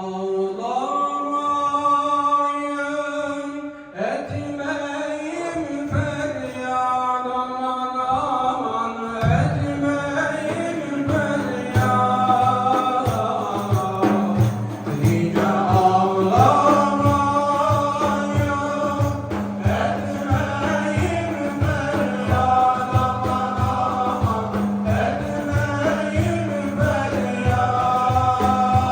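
Sufi devotional hymn (ilahi) sung as a chant. A steady low beat and a held low tone join about nine seconds in.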